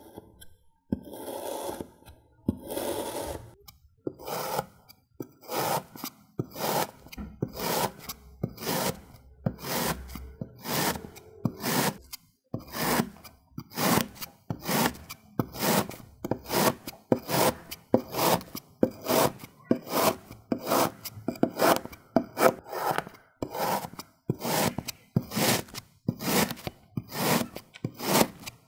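Knife blade cutting into kinetic sand, a regular run of short scraping strokes, between one and two a second, after a few longer scrapes at the start.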